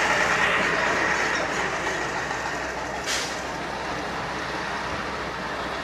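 A machine's engine running steadily, with one short hiss about three seconds in.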